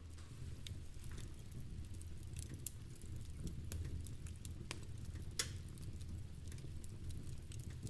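Log fire crackling with irregular pops, the loudest about five and a half seconds in, over a low steady rumble, with rain pattering mixed in.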